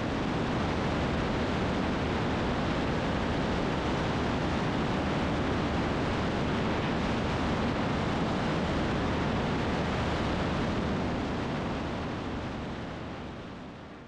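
Steady rush of wind mixed with the engine-and-propeller drone of a single-engine Cessna in flight, heard from a camera mounted outside the aircraft. It fades out over the last few seconds.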